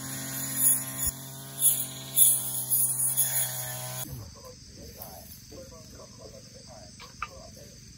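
Engine-powered brush cutter running steadily at cutting speed with a constant buzzing pitch, stopping abruptly about halfway through. Faint scattered chirps follow.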